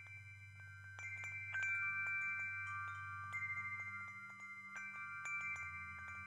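Wind chimes ringing: many clear tones struck at irregular moments and left to ring, overlapping one another, over a low steady drone.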